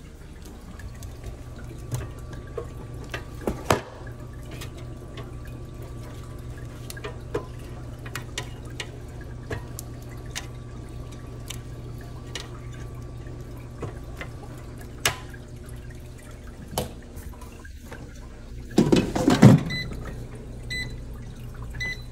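Air fryer running with a steady low hum, with scattered small ticks and pops. About 19 seconds in there is a louder rustling clatter, then a few short beeps as the touch control panel is pressed.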